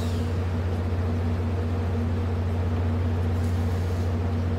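Steady low hum of a VIA Rail passenger train standing at the platform, from its idling diesel locomotive and onboard equipment.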